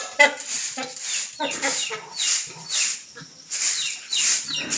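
Farm animals calling over and over: a rapid string of short, high calls, several of them falling quickly in pitch.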